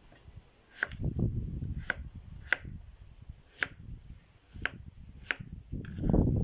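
Kitchen knife chopping raw potatoes on a bamboo cutting board: about six sharp knocks of the blade striking the board, roughly a second apart. Under them is a low rumbling noise that grows louder near the end.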